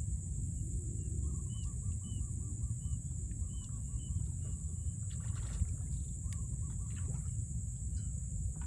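Wind rumbling on the microphone outdoors over open water, with a steady high hiss. Birds chirp faintly in quick runs of repeated notes, about a second in and again around three to four seconds in.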